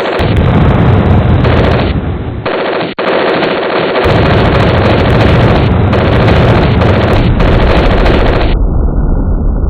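Home-made war sound effect built in FL Studio: loud, continuous machine-gun fire with rapid overlapping shots. It cuts out for an instant about three seconds in, and about eight and a half seconds in it turns muffled as the high end is cut away.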